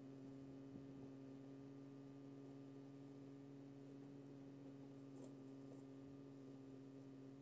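Near silence with a faint steady low hum that does not change.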